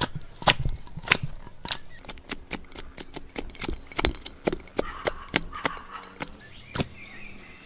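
Open tin can of wet cat food knocked repeatedly against a plastic bowl to shake the food out: a string of sharp clicks, about three a second, thinning out near the end.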